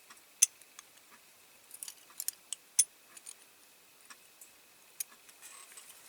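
Scattered small, sharp metal clicks and taps from handling a diecast Dinky Toys Land Rover model as its bonnet is worked open and shut on stiff, freshly painted hinges. The loudest clicks come about half a second in and near the three-second mark.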